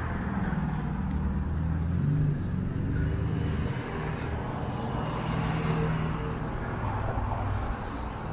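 Street traffic: a car engine running with a steady low hum over road noise.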